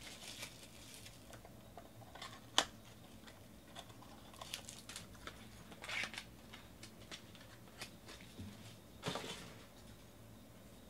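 Faint, scattered handling noises of trading-card packs and cards: a sharp click about two and a half seconds in and brief soft rustles around six and nine seconds.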